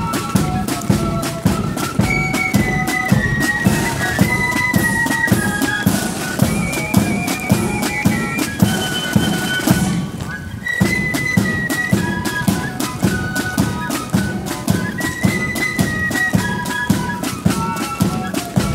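Marching flute band playing: a shrill unison melody on flutes over fast, steady side-drum beating. The music breaks off briefly about ten seconds in, then resumes.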